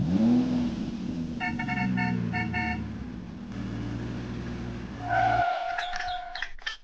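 A motor vehicle engine starts with a quick rise in pitch and runs steadily for about five seconds, with a quick series of short toots partway through. It cuts off, and a brief higher steady tone follows near the end.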